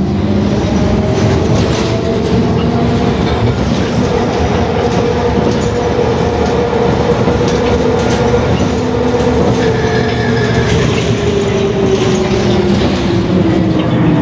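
MAZ 103 city bus driving, heard from inside the passenger cabin: a steady drivetrain whine over engine and road noise. The whine rises a little in pitch, then falls toward the end as the bus slows.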